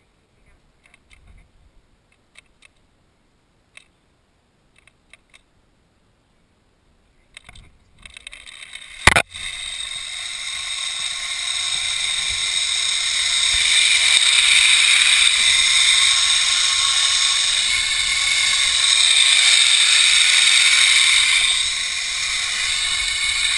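Zip-line trolley pulleys running along a steel cable. First a few small clicks of clip and carabiner gear, then a sharp clack about nine seconds in as the ride starts. After that comes a steady loud whir of the wheels on the cable, with a faint whine that slowly rises in pitch, easing a little near the end.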